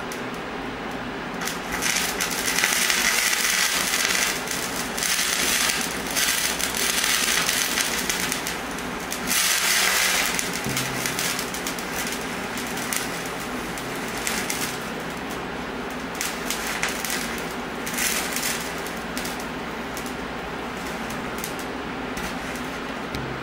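Sodium azide hissing and crackling as it decomposes in a match flame and throws sparks, in several bursts of a few seconds each with quieter spells between.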